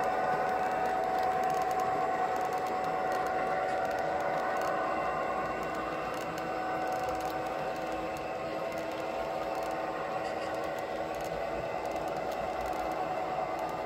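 Model container train of double-stack well cars rolling past on the track, its wheels rattling and clattering over the rails under a steady whine.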